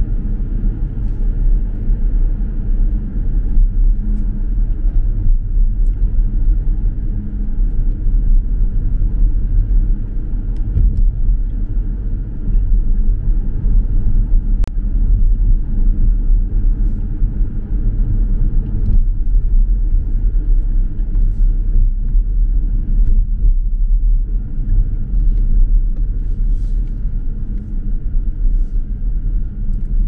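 Car on the move: a steady low rumble of engine and road noise.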